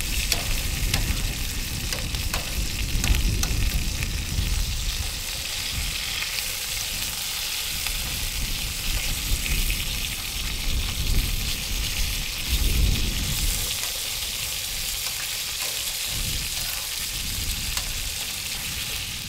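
Lamb chops and diced potatoes sizzling in a frying pan, a steady hiss of frying, with light clicks of metal tongs moving the food against the pan. A low rumble swells about three seconds in and again about thirteen seconds in.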